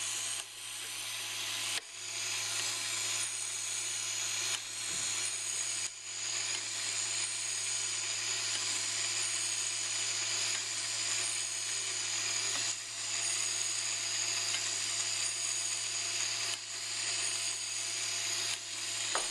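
Small electric gear motor running steadily in reverse, turning a Geneva cam and six-slot Geneva wheel with a low hum and a thin high whine. A few brief clicks come at irregular moments.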